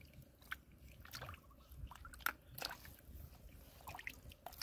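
Faint, scattered clicks and small water noises of freshwater mussel shells being handled in shallow muddy water.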